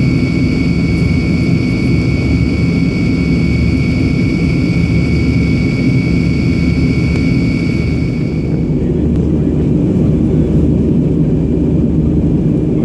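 Cabin noise inside a climbing Tupolev Tu-154M: the steady rumble and rush of its three rear-mounted Soloviev D-30KU-154 turbofans and the airflow, with a high whine over it that cuts off about eight and a half seconds in.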